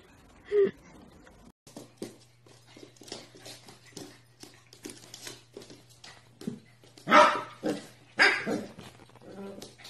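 A puppy barking twice, short barks about seven and eight seconds in, after a stretch of light clicks and taps. A faint steady hum underlies it.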